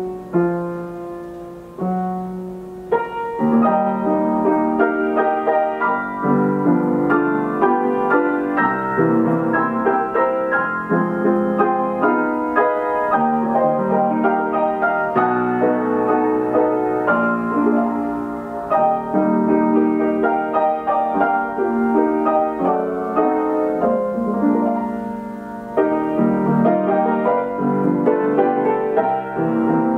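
Steinway Model S grand piano playing a paper roll on its Ampico B reproducing player mechanism, heard through the room. The opening notes are soft, fuller chords come in about three seconds in, and after a brief softening near the end the playing comes back strongly.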